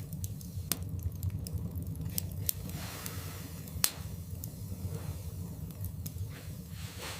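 Wood fire burning in a fireplace, crackling with irregular sharp pops over a steady low rumble of the flames. The loudest pop comes about halfway through.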